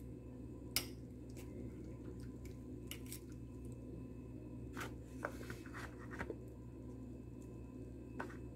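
Metal spoon clicking and tapping against a ceramic bowl as mango slices are pushed around on soft oatmeal, a handful of short sharp taps, the loudest about a second in, over a steady low hum.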